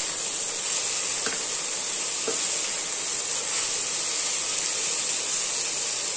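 Shredded cabbage and mixed vegetables sizzling in hot oil in a nonstick kadai while being stirred with a wooden spatula: a steady frying hiss.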